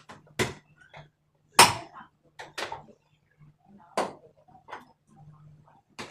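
Irregular knocks and clatters of tools and machine parts being handled while a front-load washing machine is taken apart. The loudest clank comes about one and a half seconds in, over a faint steady hum.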